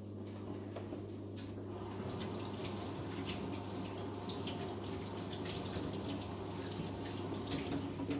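Kitchen tap running steadily into the sink while hands rinse something under the stream.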